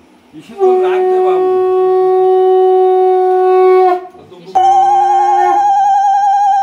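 Conch shell (shankha) blown in two long blasts: a steady low note for about three seconds, then after a brief break a second blast that jumps to a higher, wavering note.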